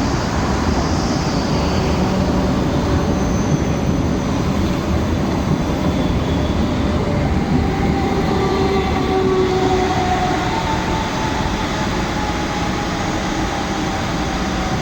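DB Class 425 electric multiple unit running into the station, with a steady rumble of wheels on rail. From about halfway through, thin high squealing tones come in and drift slightly in pitch: the squeal the train is nicknamed "Quietschie" for.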